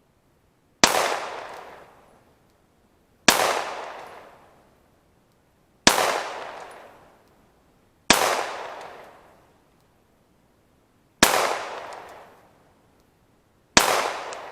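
Glock 19 9mm pistol fired six times in slow, deliberate succession, about two and a half seconds apart, each sharp shot trailing off in a long echo across the range.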